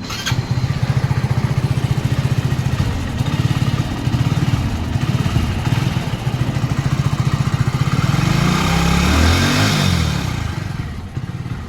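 Hero HF Deluxe BS6's small single-cylinder engine started on its freshly serviced electric self-starter, catching at once and running steadily. About eight seconds in, the revs rise briefly and fall back before it settles to idle.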